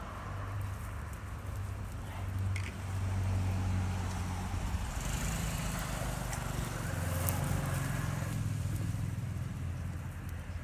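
An engine running steadily at low revs, a low hum that shifts slightly in pitch after the middle, with a couple of faint clicks.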